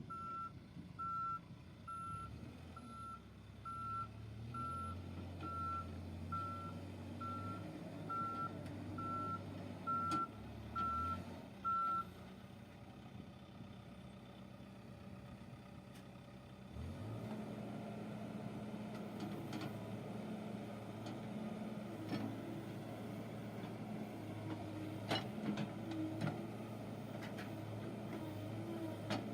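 A backhoe loader's reversing alarm beeping at a steady pace, a little faster than once a second, over its diesel engine running; the beeping stops about twelve seconds in. From about seventeen seconds in the engine runs harder, with a few sharp knocks near the end.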